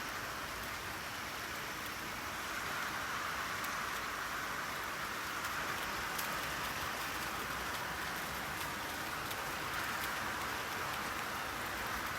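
Steady rainfall, an even hiss of raindrops with a few faint individual drop ticks.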